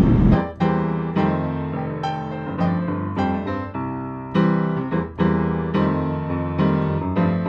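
Background piano music, with notes and chords struck every half second or so and each one dying away.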